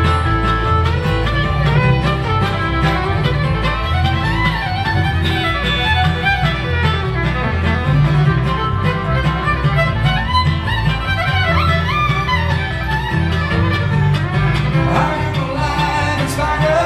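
Live bluegrass band playing an instrumental passage: a fiddle carries a sliding melody over strummed acoustic guitar, mandolin and a steady upright double bass pulse.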